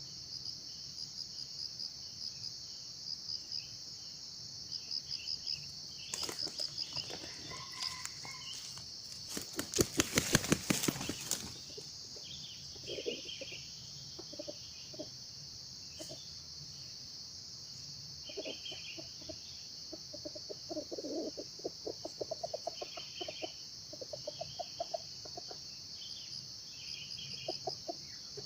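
Junglefowl giving runs of short, low, cough-like clucks over a steady high chirring of insects, with a loud, rapid rattling burst about ten seconds in.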